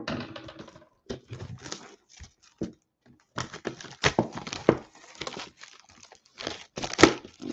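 Plastic shrink-wrap being torn and crinkled off a cardboard trading-card box: irregular crackling and rustling, with a louder crackle near the end.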